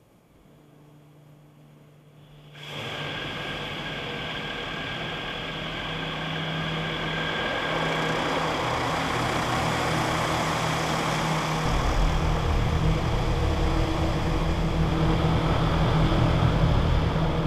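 Automatic car wash heard from inside the car: a faint machine hum, then about two and a half seconds in a sudden, loud, steady rush of water jets spraying over the car body. The sound builds gradually, and a deeper rumble joins about twelve seconds in.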